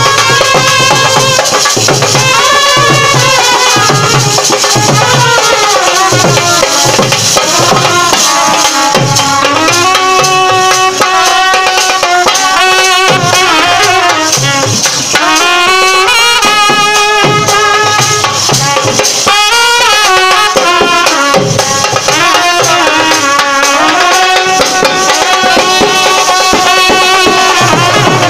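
Live band music: trumpets playing a winding, bending sanai-style melody over a steady beat on a large barrel drum (dhol) and a small side drum, with cymbals.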